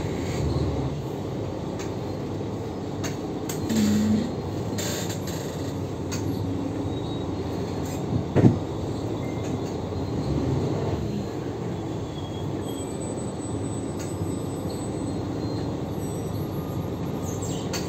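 Interior ride noise of a Mercedes-Benz O530G Citaro articulated bus under way, with its drivetrain and ZF Ecomat automatic gearbox running under a steady road rumble. A single sharp thump about eight seconds in is the loudest moment, with lighter rattles and knocks around it.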